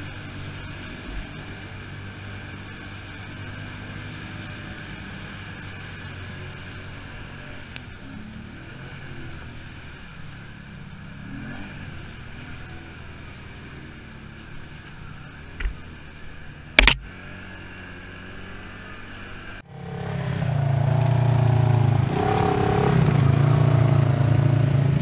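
Off-road vehicle engine running steadily at low speed, with a sharp knock about seventeen seconds in. After a sudden cut, an engine runs much louder, revving up and down.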